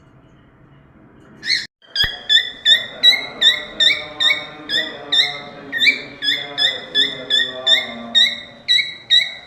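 Cockatiel singing: a rising call, then a fast run of short, identical upswept whistled notes, about two and a half a second.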